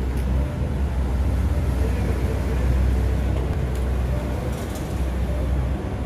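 Steady low rumble of motor traffic, with a faint steady hum above it.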